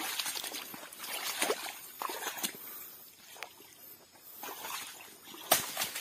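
Footsteps wading and sloshing through shallow swamp mud and water, with brush and dry sago-palm fronds rustling and crackling underfoot in irregular strokes. A single sharp knock near the end is the loudest sound.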